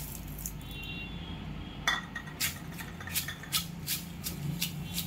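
Pestle pounding dried red chillies and coarse salt in a stone mortar. One sharp knock comes about two seconds in, then a quick run of strokes, about three a second.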